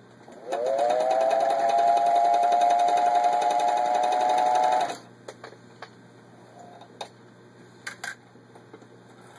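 1950 Elna 1 'Grasshopper' sewing machine motor starting up with a rising whine that settles to a steady high hum, with rapid stitching ticks as it sews through three layers of denim for about four seconds. It then stops abruptly, followed by a few light clicks.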